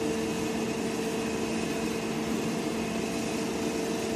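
Three-phase salient-pole synchronous motor running steadily in the lab, a constant machine hum with two steady tones that do not change.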